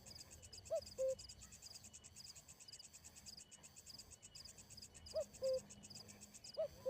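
Coucal giving three pairs of short low two-note hooting calls, each a brief arched note followed by a flat one, over crickets trilling steadily.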